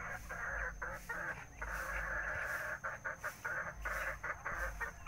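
Chickens clucking and calling: a dense, continuous chatter broken by many short pauses.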